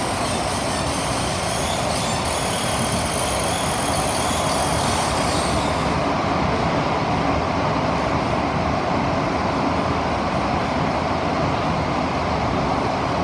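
SMRT CT251 metro train running underground, heard from inside the carriage: a steady rumble and rush of wheels on rail and tunnel air. A thin high-pitched whine rides over it and cuts off suddenly about six seconds in.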